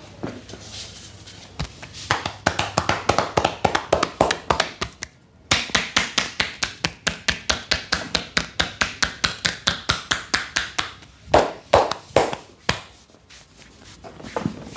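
Percussive massage: hands rapidly striking the body, about six or seven strokes a second, in two long runs with a short pause between, then a few harder single slaps near the end.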